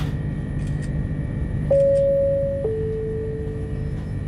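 Two-note falling chime from the Tilt Train's onboard public-address system: a higher note for about a second, then a lower one that fades. It signals that a crew announcement is about to begin. The steady low rumble of the moving train runs underneath.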